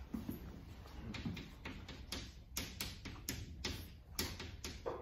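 Chalk tapping and scratching on a chalkboard as a formula is written: a quick run of sharp clicks and short scrapes, thicker from about halfway through.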